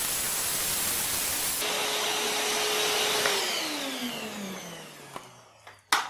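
Inalsa Micro WD10 wet & dry vacuum cleaner running with a steady rushing whine. About three seconds in it is switched off, and the motor winds down, its whine falling in pitch and fading over about two seconds. A brief click comes just before the end.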